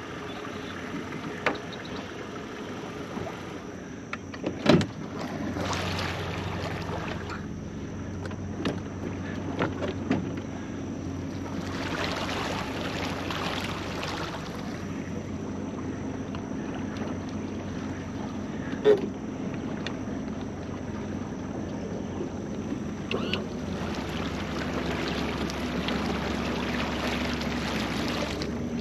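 Small boat motor running steadily at low speed, starting about five seconds in, as the aluminum jon boat moves across the water. A few sharp knocks of gear against the hull, with rushing water noise rising at times.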